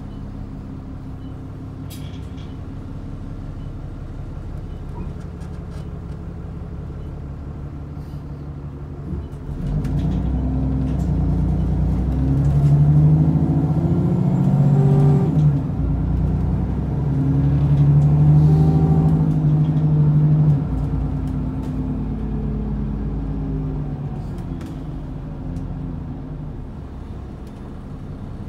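ADL Enviro400 double-decker bus engine heard from on board, running steadily at first, then about ten seconds in it grows louder and climbs in pitch as the bus accelerates. The pitch drops once about halfway through, at a gear change, climbs again, and falls back sharply as the bus eases off.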